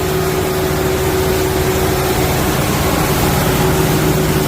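Engine-driven farm shredder running steadily, chewing up spent tomato vines and stems, with a constant engine drone under a dense mechanical rattle.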